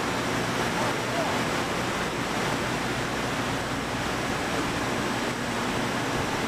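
Steady rushing noise of a woodworking factory floor, machinery and air running with no change, with faint voices under it.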